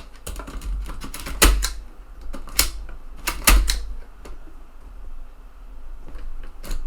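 Irregular mechanical clicks and clacks from a TEAC FD-235F 3.5-inch floppy drive's eject mechanism being worked by hand. There are a handful of sharp knocks, the loudest about a second and a half and three and a half seconds in, over low handling bumps.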